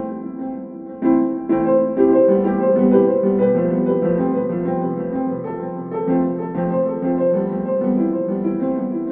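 Background music played on piano: a steady run of notes, with a fresh phrase starting about a second in.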